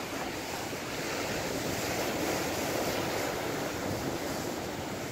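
Rough surf breaking and washing over a rocky shore, swelling a little a couple of seconds in, with wind buffeting the microphone.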